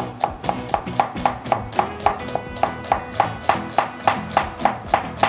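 Chef's knife slicing a red onion into thin julienne strips on a wooden cutting board: quick, even taps of the blade on the board, about four a second. Background music plays underneath.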